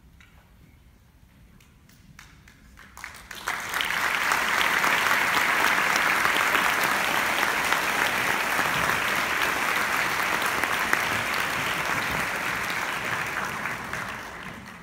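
Audience applauding: a few scattered claps, then full applause starting about three seconds in and tapering off near the end.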